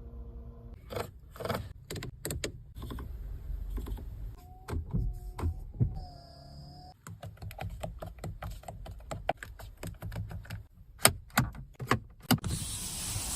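Chery Tiggo 8 Pro's cabin controls being worked: a long run of separate sharp clicks and taps, with short electronic tones about halfway through. A steady rushing hiss starts near the end.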